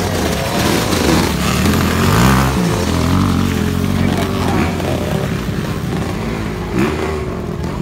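Motocross dirt bike engines revving, their pitch rising and falling as the bikes are ridden through deep mud, with people talking among the crowd.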